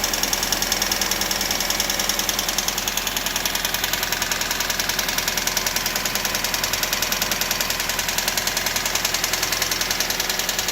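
1999 Toyota RAV4 engine running with a fast, even ticking, many ticks a second; the cause of the tick is the owner's open question.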